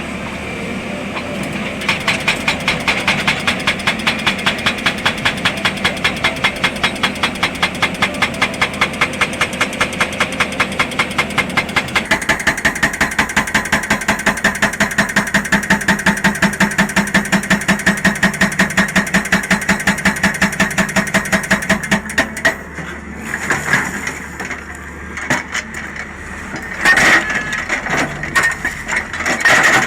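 Excavator-mounted hydraulic rock breaker pounding rock in a rapid, even rhythm of about five blows a second over the running engine. The hammering stops about two-thirds of the way through, leaving the engine with irregular loud knocks and cracks.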